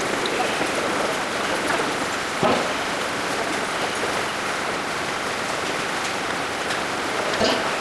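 Steady hiss of water noise in an indoor swimming pool hall, with a couple of short sharp sounds, one about two and a half seconds in and one near the end.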